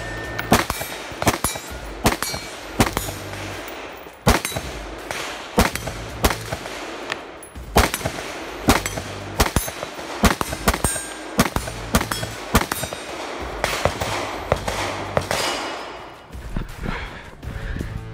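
A string of rifle shots fired at steel targets, some in quick pairs, with the steel ringing on hits. Background music with a steady bass beat runs underneath.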